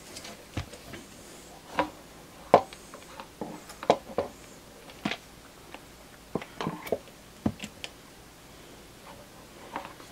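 Hard plastic parts of a water-pump pressure-control unit knocking and clicking as they are handled and fitted together: a dozen or so short, irregular knocks, the loudest about two seconds in.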